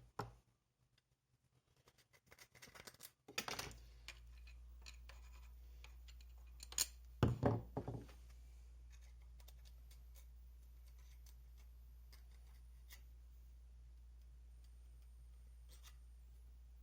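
Scraping and a few sharp clicks from cleaning the groove of a chainsaw bar with a broken hacksaw blade and handling the bar. A low, steady hum comes in about three and a half seconds in and holds.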